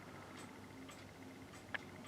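Quiet room tone with faint ticking, about twice a second, and one sharp click near the end.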